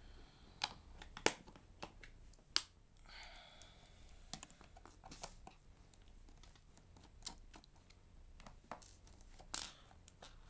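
Faint, irregular clicks and taps of a small screwdriver being handled against the plastic bottom case of a MacBook A1342 and set onto its case screws, with a brief scraping rustle about three seconds in.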